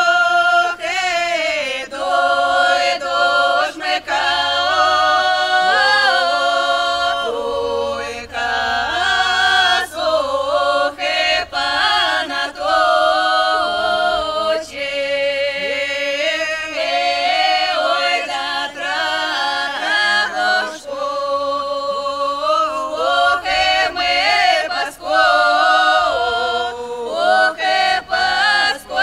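A vocal group singing a folk song a cappella in several voices at once, holding long notes in phrases separated by short breaks.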